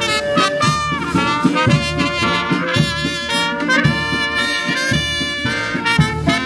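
Brass band playing a tune, trumpets and trombones carrying the melody over a steady beat in the bass.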